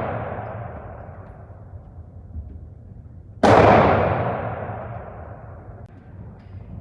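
A single 6.5 mm Mannlicher-Carcano bolt-action rifle shot about three and a half seconds in, its long rolling echo dying away over a couple of seconds. At the start, the echo of the previous shot is still fading.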